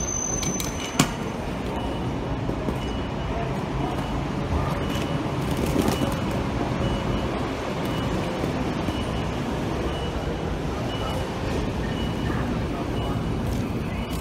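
Steady traffic and vehicle noise at an airport kerbside, with a faint high beep repeating about once a second and a single sharp click about a second in.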